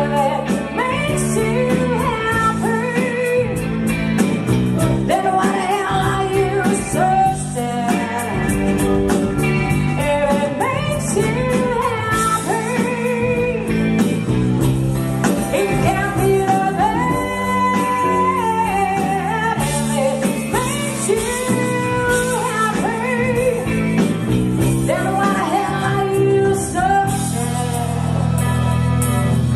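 A live band playing a song: a woman singing lead into a microphone over electric guitar, bass guitar and drums.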